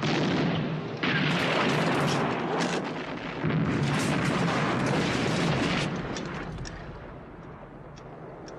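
A series of heavy explosions blasting armoured cars: three sudden blasts, at the start, about a second in and about three and a half seconds in, each trailing into rumble, the din dying away after about six seconds.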